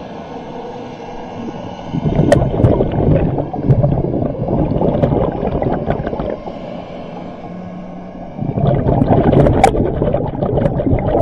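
Underwater, a scuba diver's exhaled breath bubbles out of the regulator and gurgles past the camera. It comes twice, about two seconds in and again about six seconds later, with quieter stretches between and a few sharp clicks.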